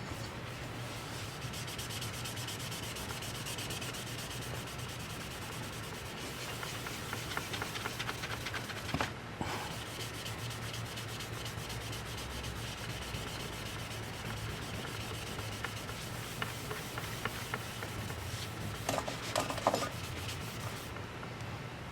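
Steady scratchy scrubbing as dust and grime are cleaned off a laptop's internal parts, over a low steady hum, with a few louder clicks about nine seconds in and again near the end.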